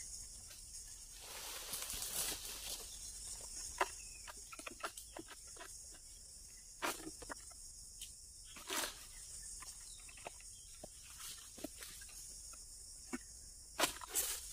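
An egrek (a long-poled sickle) hacking and scraping at the base of an oil palm's fronds and fruit bunch, in irregular clicks and rasps, with a sharper crack near the end as the bunch tears loose. Insects chirr steadily throughout.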